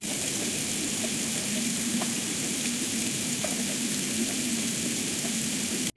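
AI-generated waterfall sound effect playing back as a steady, even hiss of rushing water, made from the plain prompt 'waterfall sound effect'. It cuts in and cuts off abruptly.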